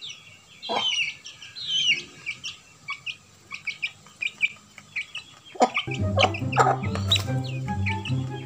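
Chickens calling: a string of short, high peeps and clucks. Background music with a low bass line comes in about six seconds in.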